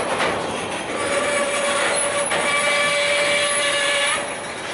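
Freight train of hopper wagons rolling past, its wheels squealing against the rails in a steady high-pitched screech that fades near the end, over the rumble of the wheels, with a couple of sharp clacks from wheels crossing rail joints.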